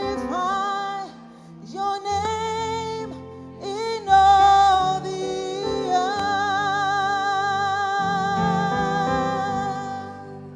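Gospel worship singing: a vocalist holds long sung notes with vibrato over sustained keyboard chords, in phrases with short breaks, the loudest note about four seconds in.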